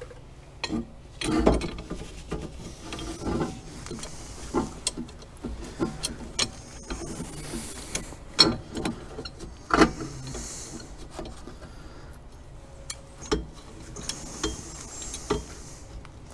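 A C-clamp being screwed down on a brake caliper to push the piston back: the clamp's threaded screw and handle turning, with irregular clicks and knocks of metal tools and rubbing. A louder knock comes about a second and a half in and again about ten seconds in.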